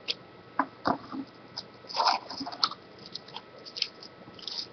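Trading-card pack wrapper and cards being handled: scattered short crinkles, crackles and light taps, with a denser burst of crinkling about two seconds in.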